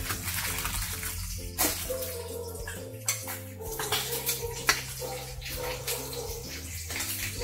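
Background music with low held notes under a steady rushing hiss, with a few sharp clicks of a metal springform pan and knife being handled.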